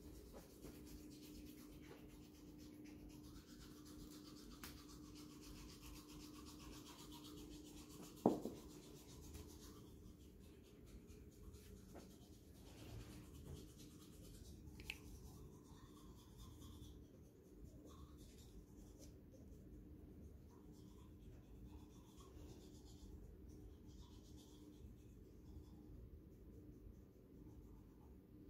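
Faint scrubbing of a toothbrush as someone brushes their teeth, with one sharp click about eight seconds in.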